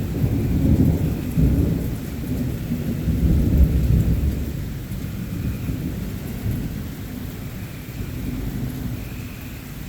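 Thunder rumbling over steady rain. It is loudest in the first few seconds, peaking about four seconds in, then rolls away slowly.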